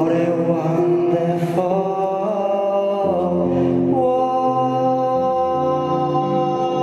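Male solo singer's voice through a microphone, gliding between notes and then holding one long note from about four seconds in, over instrumental accompaniment whose low notes come in about three seconds in.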